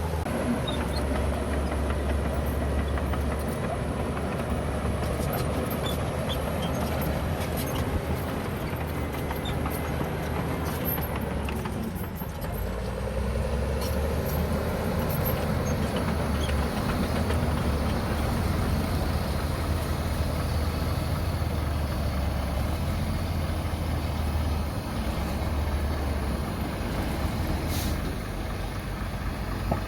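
Heavy diesel earthmoving machinery running steadily. About twelve seconds in, the engine note dips and then climbs back up, as the revs drop and rise again under load.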